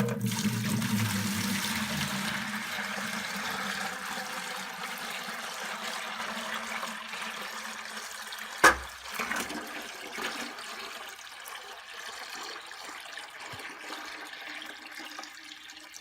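Water running steadily into a plastic ice cream pail as it fills, slowly getting quieter. About halfway through, one sharp crack: a 3D printed plastic chain link snapping under the load of the filling pail.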